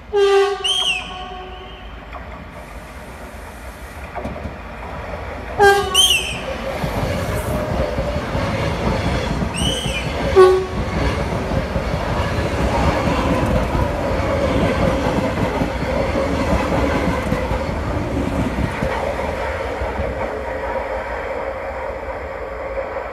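Cercanías commuter train sounding its horn three times, the last blast short, as it runs into the station. It then passes along the platform with a steady rumble and a continuous whine that slowly fade near the end.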